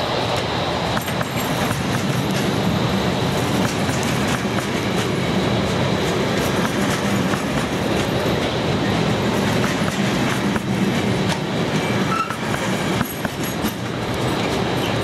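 Freight train of flat wagons loaded with rails rolling past, a steady rumble with the wheels clattering over the rail joints.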